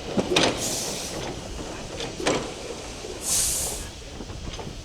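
GWR 5101 class large prairie tank engine 4110 pulling away slowly: a few widely spaced exhaust beats, with two bursts of steam hiss between them.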